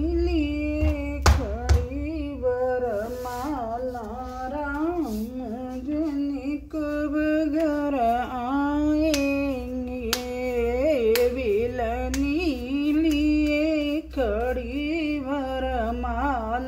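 A woman singing a folk song unaccompanied, in long held, wavering notes. A few sharp slaps cut through, the loudest two about a second in, from hands patting a ball of dough between the palms.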